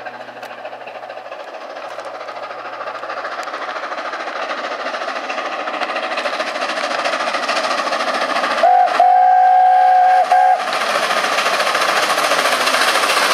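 LNER A4 Pacific steam locomotive running towards the listener with its train, getting steadily louder as it approaches. About nine seconds in it sounds its chime whistle: a short blast, then a longer steady one of about a second and a half.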